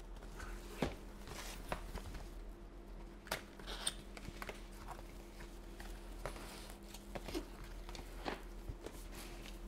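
Cardboard graphics-card box being handled and opened: scattered taps, scrapes and rustles as the inner box slides out of its outer sleeve, over a steady low hum.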